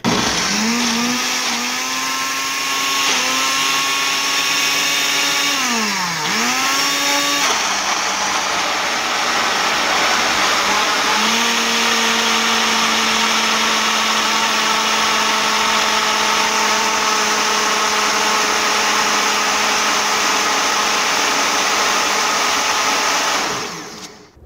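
Ninja countertop blender motor running at full speed, blending a fruit and spinach smoothie. Its pitch dips and recovers about six seconds in, then holds steady until it switches off near the end.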